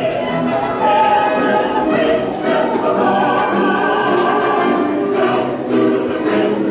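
Choral music: a choir singing long, held notes.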